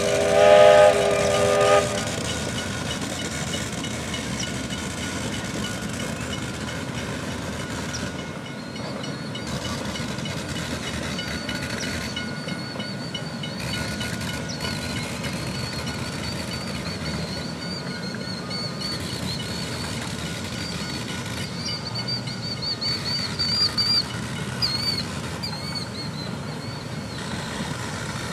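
A grand scale steam train's chime whistle sounds for about two seconds at the start. Then comes the steady rolling clatter of small-gauge railcars on the track, and from about halfway through a thin, high, wavering squeal rides over it.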